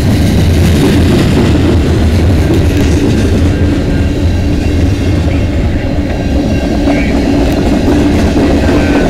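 Freight train's covered hopper and tank cars rolling past at a crossing: a loud, steady rumble of steel wheels on rail with clickety-clack over the rail joints.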